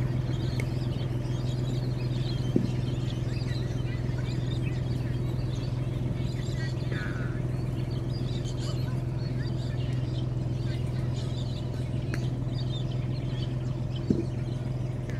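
Small work vehicle's engine running at a steady idle, with a few birds chirping and two short clicks, about two and a half seconds in and near the end.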